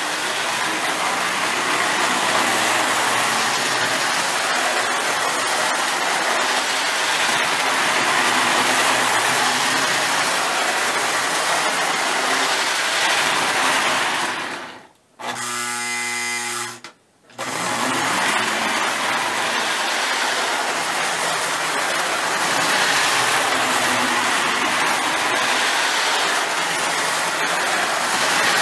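Lionel GP20 O-gauge toy diesel locomotive running steadily around three-rail track, its electric motor whirring and wheels rattling on the rails. About halfway through, the running noise cuts out for about two seconds and a steady buzzing tone sounds in its place.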